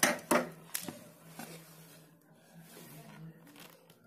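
Handling noise: a few sharp taps and rustles as a hand reaches over a wooden board and picks up a small transistor. The taps are loudest in the first second, then quieter rustling follows over a steady low hum.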